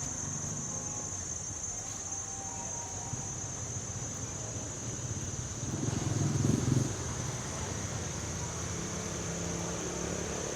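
A steady, high-pitched drone of insects in the trees over a low street rumble, with a vehicle passing about six seconds in, the loudest sound, swelling and fading within a second or so.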